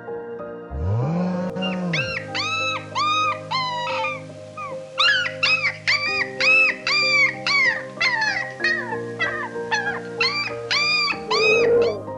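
An animal giving a long run of short, high whining calls, each rising then falling in pitch, after a single low call about a second in, over soft sustained background music.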